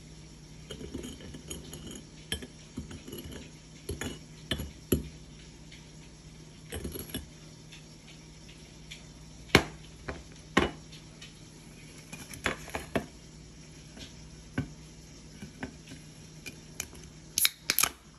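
A glass beer mug being rubbed rim-down in cinnamon sugar on a ceramic plate, with soft gritty scraping and scattered knocks and clinks of glass on ceramic and on the table. Near the end, a beer can's pull tab cracks open with a quick cluster of sharp clicks.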